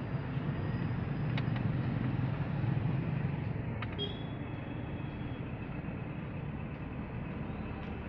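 Steady low outdoor rumble with two short, sharp clicks, about a second and a half and about four seconds in.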